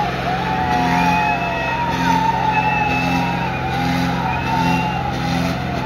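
Two John Deere 5310 tractors' diesel engines running hard under load as they pull against each other in a tug-of-war. Music with a melody and an even beat plays loudly over the engine noise, together with crowd noise.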